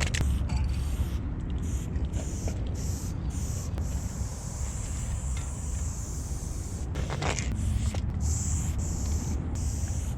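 Aerosol spray-paint can hissing in a run of sprays, each stopping briefly before the next, over a steady low rumble. A short, louder rasping burst comes about seven seconds in.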